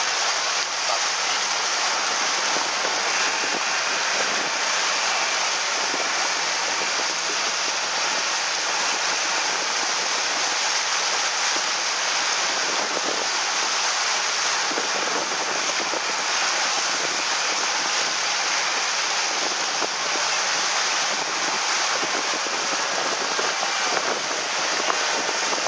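Steady, even hiss of rushing water, with no engine note or voices standing out.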